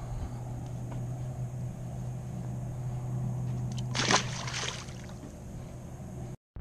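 A striped bass thrown back into the lake, landing with a single splash about four seconds in, over a steady low hum.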